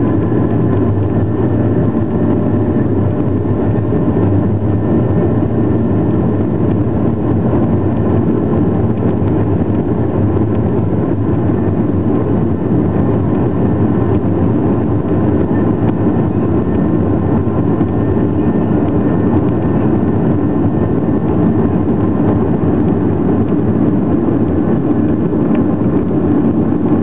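Jet airliner's engines and airframe heard from inside the passenger cabin, a loud, steady rumble with a faint steady whine over it, as the aircraft rolls along the ground.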